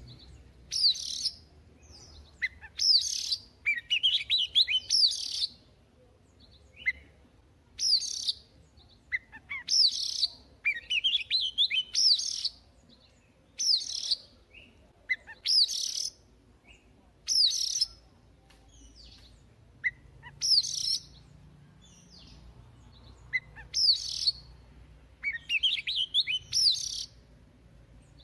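White-rumped shama singing: short, loud whistled phrases of rising and falling notes, one every second or two, with brief pauses between them.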